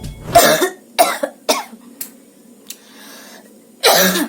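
A woman coughing on purpose: several short, dry, forced coughs in quick succession, a pause, then one longer cough near the end.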